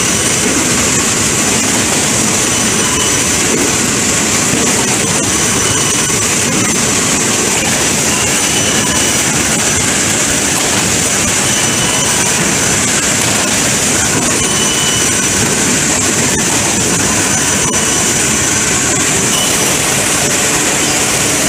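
Plywood finishing-line machinery (sizer, sander and roller conveyor) running continuously: a loud, even industrial noise with a faint steady high whine.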